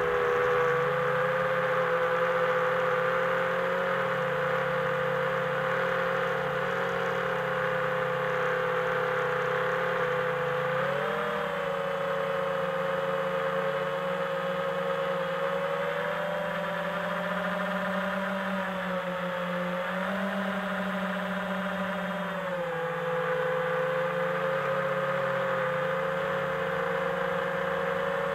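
Homebuilt FPV quadcopter's four T-Motor Velox 2306 2400 kv brushless motors whining steadily in flight. The pitch rises briefly about 11 and 20 seconds in and drops about 22 seconds in, following the throttle.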